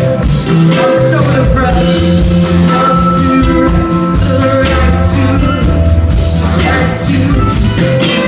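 Live band playing a rock-soul song on electric guitars, keyboard and drums, with a steady beat and a singer's voice.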